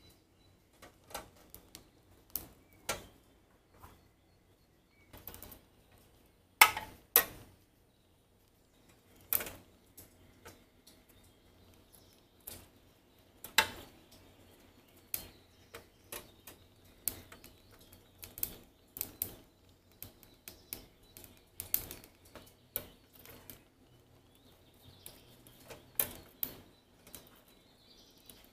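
Long metal tongs clicking and scraping against a wire grill grate as strips of food are turned: an irregular string of sharp clicks, the loudest two about seven seconds in.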